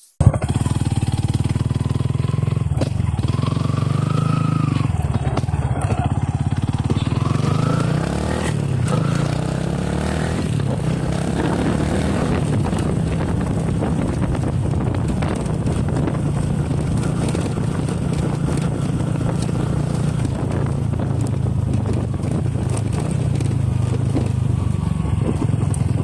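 Yamaha Sniper 150 single-cylinder four-stroke engine idling steadily through a Replica Pro aftermarket exhaust.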